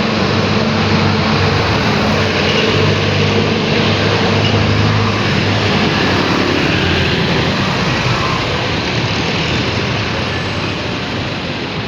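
Motor vehicle engine running with steady road and wind noise; the low engine hum is strongest in the first half and fades after about six seconds.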